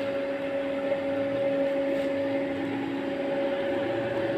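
Small electric centrifugal blower running with a steady hum, forcing combustion air through a pipe into the base of a burning biochar drum kiln. A lower tone in the hum drops away near the end.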